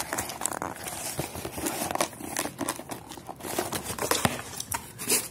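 Cardboard box and packaging being handled while a laptop charger is taken out: irregular crinkling, rustling and sharp clicks and scrapes.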